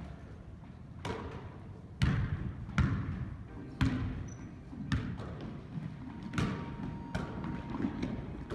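Basketball bouncing on a hardwood gym floor, dribbled about once a second, each bounce echoing in the gym.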